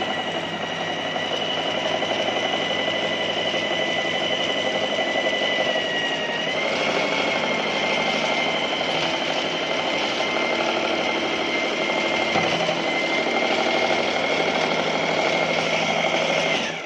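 Electric sewing machine running continuously as it stitches, a steady motor whine that rises slightly in pitch about six seconds in, then stops abruptly near the end.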